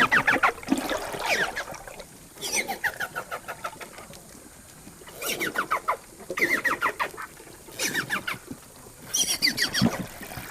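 Amazon river dolphin (boto) calling: about six short bouts of rapid clicking pulses and brief gliding squeals, spaced a second or two apart.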